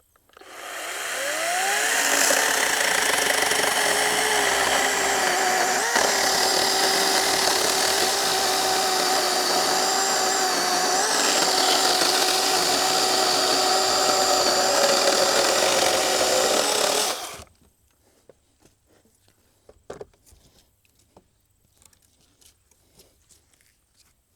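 Greenworks 40-volt battery chainsaw whining up to speed over about a second and a half, then running steadily as it cuts through wood, the pitch sagging slightly under load. It cuts off suddenly after about seventeen seconds, leaving only a few faint clicks.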